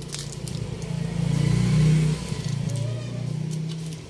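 A low engine drone that builds to its loudest about two seconds in and then fades.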